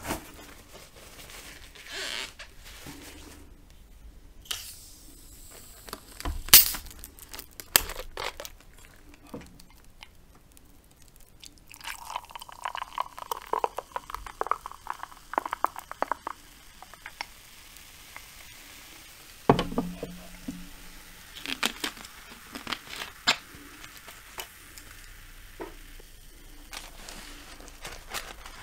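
Scattered clicks and knocks of handling, then a dark fizzy soft drink poured from a bottle into a glass mug, splashing and foaming, with fizz hissing on after the pour. A sharp thump follows, then light clicks and paper crinkling.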